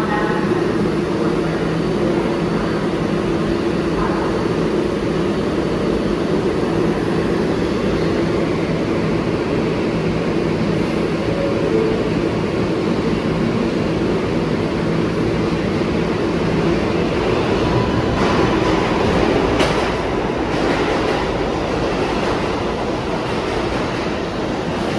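New York City subway train running through an underground station: a steady, loud rumble with a low hum that fades out about two-thirds of the way through, then a short run of clacks from the wheels over rail joints.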